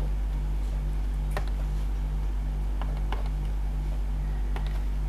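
Steady low electrical hum with a buzz that pulses about twice a second, and a few light clicks of a stylus tapping a tablet screen while writing.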